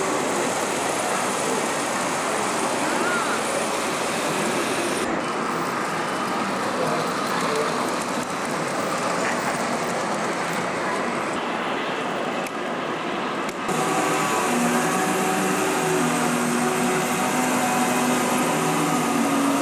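Steady din of a busy exhibition hall, many voices mixed with large-scale model steam locomotives running on the track. About two-thirds of the way through it gets a little louder and several steady held tones come in.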